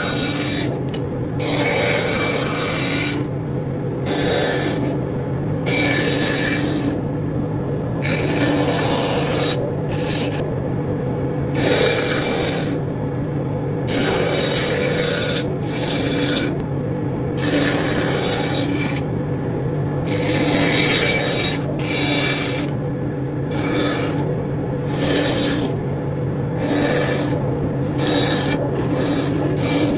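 Repeated rasping strokes on wood, irregular and each lasting about half a second to a second and a half, over a steady low machine hum.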